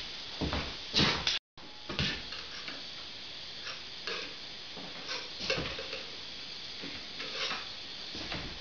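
Scattered light clicks and knocks from hand tools being handled and set down on a benchtop, over a steady faint hiss. The sound drops out completely for a moment about one and a half seconds in.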